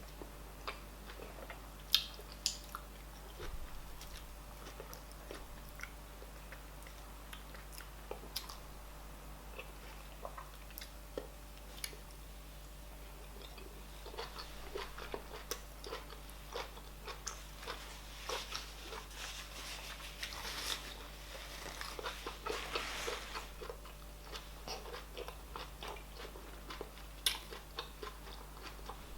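Close-miked eating: chewing and wet mouth clicks of cauliflower fufu with oha soup, eaten by hand. The clicks are scattered at first and come thickest from about halfway until near the end.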